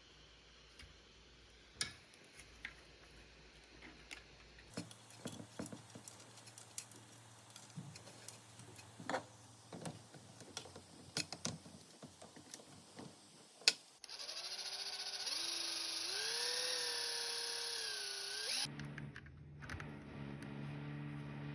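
Scattered clicks and knocks of hand tools and metal parts as a microwave-transformer spot welder's tip circuit is reworked, with one sharp loud click. About two-thirds of the way through, a louder pitched sound slides up and down for several seconds, and it gives way to a steady low hum near the end.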